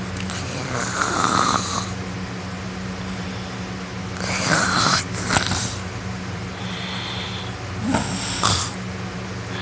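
A sleeping person snoring loudly: three snores about three and a half seconds apart, over a steady hum.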